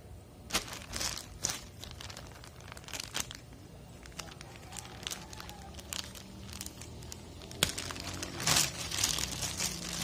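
Clear plastic bag crinkling and crackling in irregular bursts as it is handled and opened, loudest near the end as the bag is pulled open.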